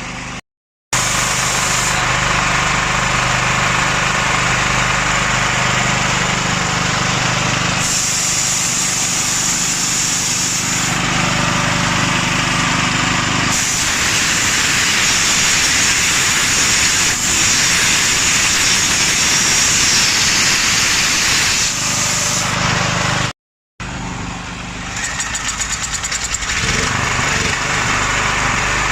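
Small generator engine running steadily, its sound turning rougher and more hissing about halfway through.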